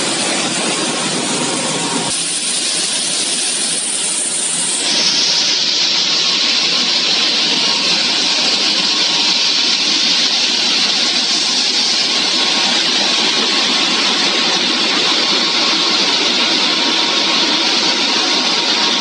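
French fries production line machinery running: a steady rushing noise from the conveyor and the air-blower fans over the belt. The sound changes abruptly about two and five seconds in, and is a brighter, hissier rush from then on.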